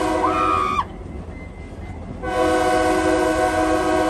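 Locomotive horn sounding from the moving train: a short blast, then about a second and a half later a long steady blast, over the low rumble of the rolling train.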